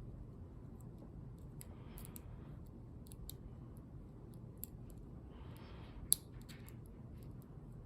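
Lock pick and tension wrench working in a large padlock's keyway: small, scattered metallic clicks of pins being set, with one sharper click about six seconds in.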